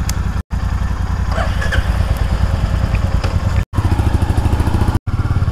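Motorcycle engine running under way, picked up close by the rider's GoPro, with a steady fast low firing pulse under a rushing haze. The sound drops out briefly three times.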